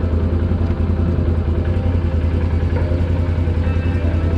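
Can-Am ATV engine idling steadily, a low even rumble with no change in revs.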